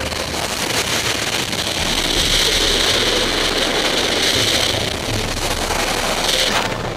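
Loud, steady rush of freefall wind buffeting a helmet-mounted camera's microphone, with a brief dip in level near the end.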